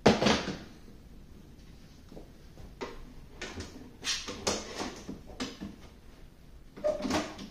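Yellow one-handed bar clamps being handled and ratcheted tight against a planer's wooden infeed table and a melamine sled: a sharp knock at the start, then a string of short clicks and knocks as the clamp is squeezed.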